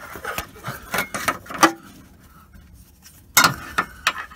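Handling noise close up: a run of sharp clicks and taps with some rubbing in the first second and a half, a quieter stretch, then another cluster of taps near the end, from a hand and paper-wrapped part knocking about in the tight space under the engine.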